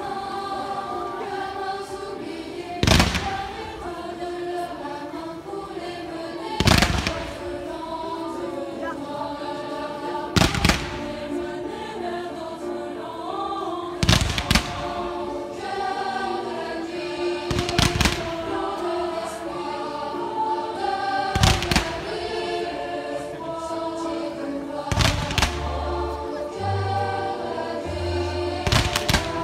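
Fireworks shells bursting with eight loud bangs, about one every three and a half to four seconds, over a musical soundtrack with choir singing.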